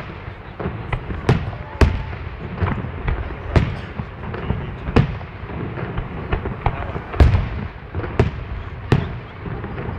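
Aerial fireworks going off: a string of sharp shell bursts at irregular intervals, often less than a second apart, some followed by a short echo. The loudest bangs come a little before two seconds in and about seven seconds in.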